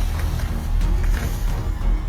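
Background music with a heavy bass and percussive hits.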